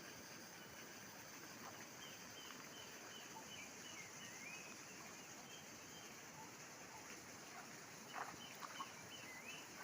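Quiet outdoor ambience: a bird calls over and over in short high chirps above a steady hiss. A few soft knocks come near the end.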